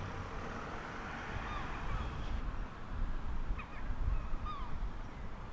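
Gulls calling now and then over the harbour: a few short cries that fall in pitch, over a low steady rumble.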